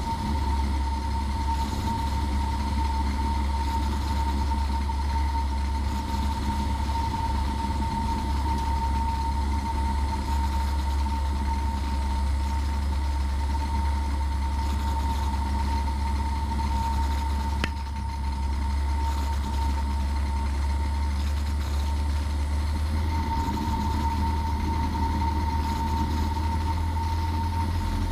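Cessna 172P's four-cylinder Lycoming engine and propeller droning steadily, heard inside the cockpit, with a steady high tone on top. There is a single brief click about eighteen seconds in.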